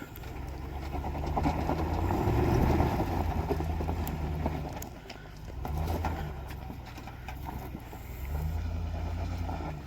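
An off-road vehicle's engine working under load on a steep dirt climb. Its low rumble rises twice, with a few short knocks over it.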